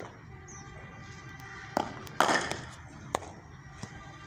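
Cricket practice knocks: a pair of sharp impacts about half a second apart, a little under two seconds in, from a cricket ball bouncing and being struck by the bat. Two lighter knocks follow later.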